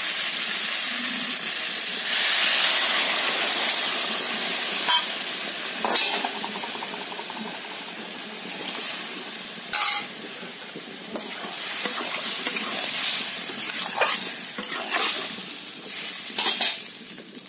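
Water added to hot fried masala and elephant foot yam pieces in a kadhai sizzles loudly. The hiss swells about two seconds in and then slowly dies down as the mix turns to gravy. A metal spatula stirs and scrapes the pan, with a few sharp clanks against the metal.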